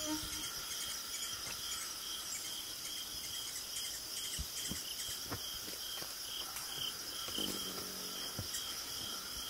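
Insects chirping in the evening: an even, high chirp repeating about twice a second over a steady high hiss, with a few faint soft knocks in the middle.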